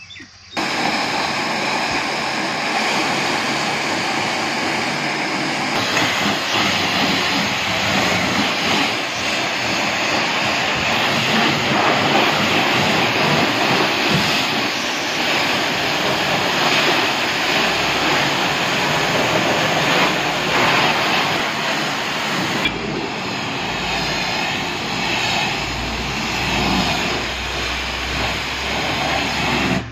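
High-pressure washer jet spraying water onto a car's body: a loud, steady hiss of spray that starts abruptly about half a second in. A low hum joins underneath in the last several seconds.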